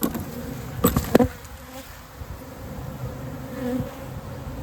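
A cloud of honeybees buzzing around, agitated after their hive has been moved and opened, with a few sharp knocks in the first second and a half.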